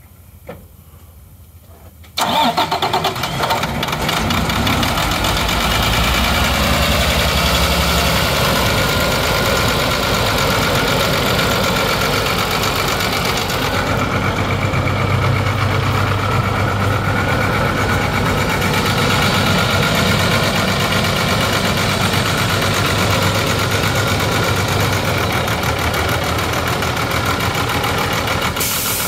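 International DT466E 7.6-litre inline-six diesel in a 2001 International 4900 truck starts suddenly about two seconds in, then runs at a steady idle.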